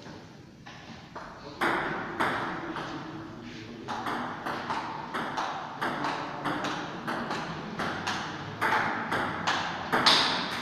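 Table tennis rally: the ball clicks sharply off the bats and the Stiga table, each hit trailing a short echo. Two separate hits come first, then from about four seconds in a steady exchange of about two to three hits a second, the loudest near the end.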